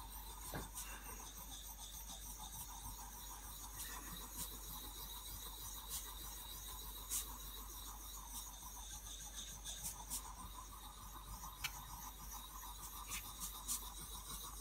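Steel blade rubbed back and forth by hand on a water-wetted homemade sharpening stone cut from ceramic facing tile: a quiet, steady scraping of metal on abrasive as the stone removes metal from the blade.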